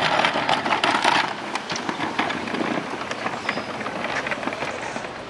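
Wheeled plastic trash can rolling over asphalt: a rattling clatter of small knocks, loudest in the first second or so as it passes close, then fading.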